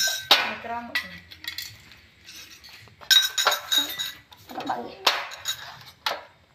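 Sharp metallic clinks and clunks as a butane gas canister is fitted into a portable gas stove's canister compartment and the compartment lid is shut, mixed with a spoon clinking in a bowl. The clinks come in spells, with a cluster about three seconds in and a click near the end.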